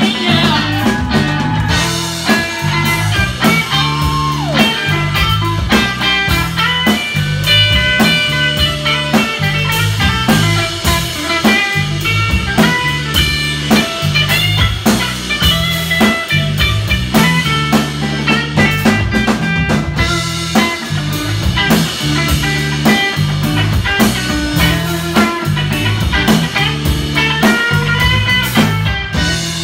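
Live blues-rock band playing without vocals: an electric guitar carries the lead line with bent notes over electric bass and a drum kit.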